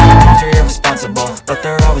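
Hip-hop background music: a held synth and bass note gives way, about half a second in, to a drum beat with a steady kick and hi-hats.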